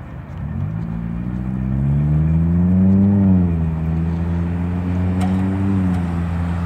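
A road vehicle's engine pulling away from a stop as traffic moves off over the crossing. Its note rises for about two and a half seconds, drops about three seconds in, then holds steady.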